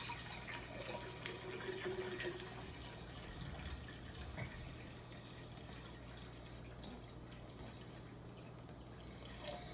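Water pouring in a steady stream from a plastic spring-water jug into a large glass jar of kombucha tea, a little louder in the first couple of seconds.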